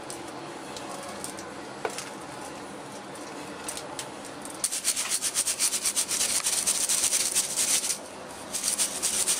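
Ground cashew powder being sifted through a steel flour sieve by hand: a fast, scratchy rasping of the mesh being shaken and rubbed that starts about halfway through, stops briefly near the end and then starts again. Before it, only a few light clicks of the steel dish and sieve.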